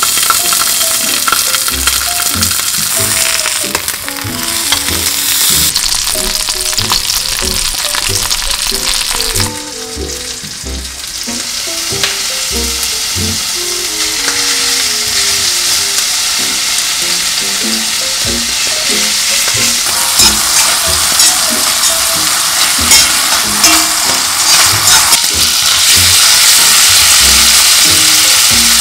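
Hairtail fish and thin-sliced lamb sizzling in oil in hot pans: a steady frying hiss that drops away about ten seconds in, then builds again and is loudest near the end as the lamb fries.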